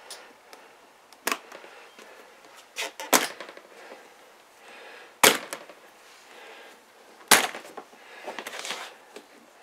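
Latches on an aluminium hard rifle case being flipped open one after another: about five sharp metal clicks, the loudest two about five and seven seconds in, then a short rustle near the end.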